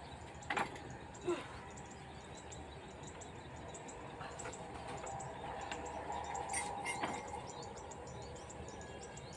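Outdoor ambience of insects chirping and birds calling, with a couple of short knocks about half a second and just over a second in.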